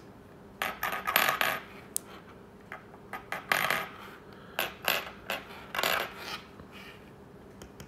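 Thin metal projector mounting plates clicking and clacking against a wooden desk as a hand presses on their corners and they rock, in a series of irregular metallic taps. The clicking comes from a bent plate that does not sit flat.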